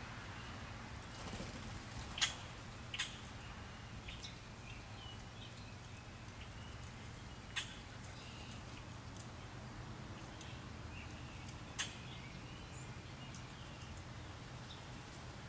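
Quiet outdoor ambience with a steady low hum, a few faint high bird chirps and scattered sharp clicks, the loudest about two seconds in.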